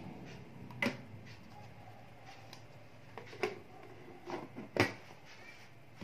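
A few light plastic clicks and knocks as the lid of a plastic microwave steamer-cooker is handled and fitted on, the loudest about five seconds in.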